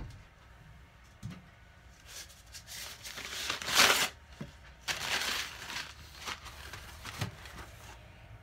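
A single knock at the start as the wooden wire soap cutter is handled, then rustling and crinkling of tissue paper being handled, loudest near the middle and trailing off into a few light taps.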